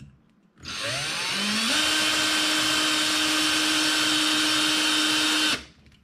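Ryobi cordless drill spinning a 1/16-inch bit into the metal hood of a diecast toy car. The motor whine starts about half a second in, rises in pitch as it speeds up, holds steady, and cuts off suddenly near the end.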